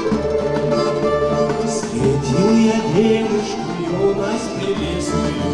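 A live folk ensemble playing: plucked strings and accordion over a steady bass line.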